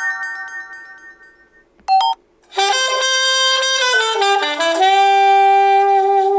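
Huawei Honor Play 7 ringtones played in turn. One tone's chime chord fades away, a short snippet starts and cuts off about two seconds in, then a new ringtone plays a melody that steps down in pitch and settles on a long held note.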